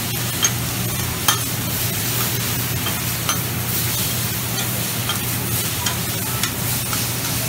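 Shrimp, beef and noodles sizzling on a steel flat-top griddle while metal spatulas scrape and stir them, with scattered sharp clacks of spatula on steel over a steady low hum.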